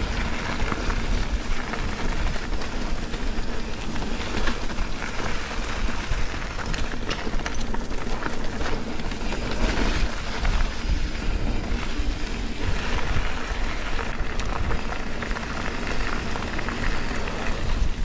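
Mountain bike tyres rolling over a dirt trail with a constant crackle, under steady wind rush and low rumble on an action camera's microphone.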